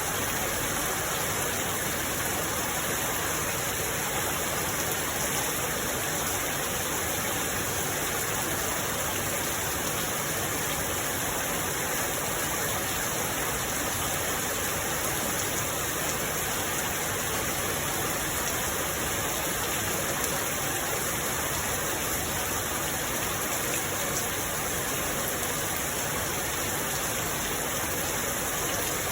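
Steady rain, an even unbroken hiss that holds the same level throughout.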